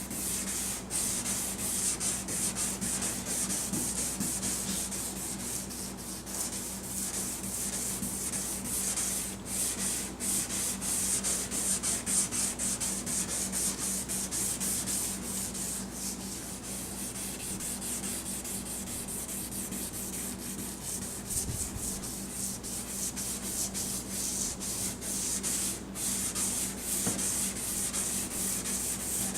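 Lubricated abrasive pad from a Turtle Wax headlight restoration kit wet-sanding a plastic headlight lens by hand: a continuous, fast back-and-forth scratchy rubbing. The pad is taking a thin layer off the yellowed, oxidized plastic.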